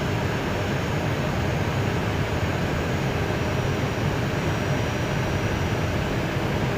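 Steady low rumble and hiss inside an Airbus A319's cockpit as the jet taxis slowly with its engines at idle, with a faint high whine about halfway through.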